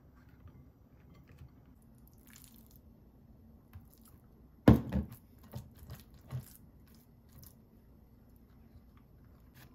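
Ground-meat filling being moved from a metal mixing bowl into a glass bowl lined with softened cabbage leaves: one sharp knock a little before halfway, then a few lighter knocks over the next two seconds.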